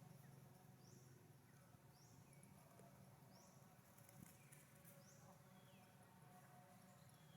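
Faint ambience with a low steady hum and a small animal's short, high, rising chirp repeating about once every second or so.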